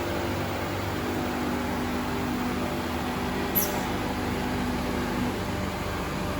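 Bottero Variant 810BCS vertical glass edging machine running, a steady mechanical hum with several steady tones from its grinding spindles; one tone stops about five seconds in. A single sharp click sounds about three and a half seconds in.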